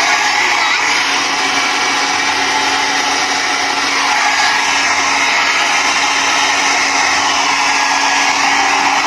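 Small handheld hair dryer running steadily, its fan blowing a loud, even rush of air with a faint steady hum under it.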